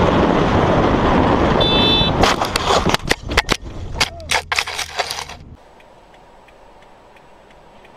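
Motorcycle ridden with loud rushing wind noise, a brief high tone about two seconds in, then a run of sharp impacts and clatter as the bike crashes and the camera tumbles. The clatter stops about five and a half seconds in, leaving a low steady hum.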